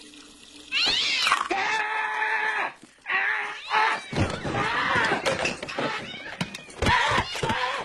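Cat yowling and screeching in several long, loud, wavering cries as it attacks, broken by short knocks.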